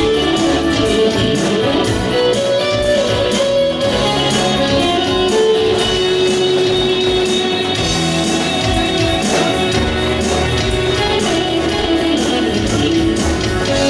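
Instrumental break of a live pop ballad with no singing: an electronic keyboard playing sustained chords under a plucked, guitar-like lead melody, over a steady beat of high ticks.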